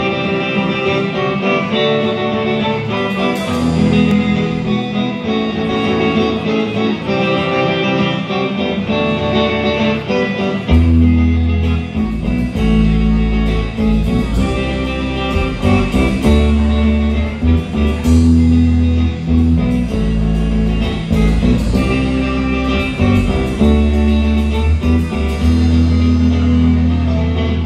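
Live rock band playing an instrumental intro: electric guitars at first, then a heavy low bass and drums come in about eleven seconds in and the full band plays on.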